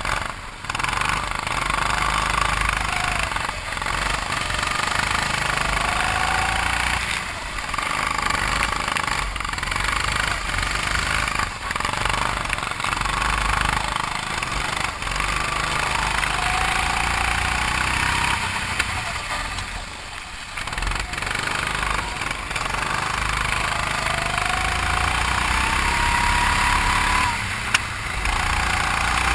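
A 270 cc (9 hp) go-kart's single-cylinder four-stroke engine revving up along the straights and dropping back into the corners, several times over, as the kart laps a wet track. A steady hiss of rain and water spray runs under the engine.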